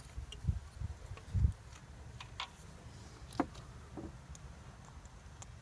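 Scattered small metallic clicks and a few low bumps as a removed hydraulic valve lifter is handled and worked by hand. This is the lifter taken for the faulty one.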